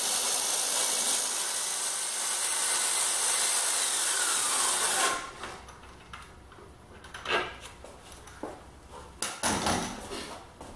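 Power drill running steadily as it spins the threaded rod out of a box-joint sled, stopping abruptly about five seconds in. A few light knocks follow as the parts are handled.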